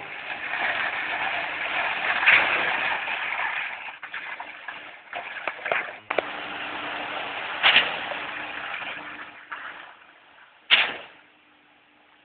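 Concrete pump delivering concrete through its rubber end hose onto a rebar floor slab: a noisy rushing wash of concrete and pump, loudest in the first few seconds, then uneven, with two sharp surges about three seconds apart over a faint steady hum, dying away near the end.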